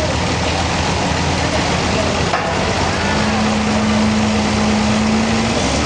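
Sawmill machinery running steadily with dense mechanical noise. A steady low hum joins about halfway through and stops shortly before the end.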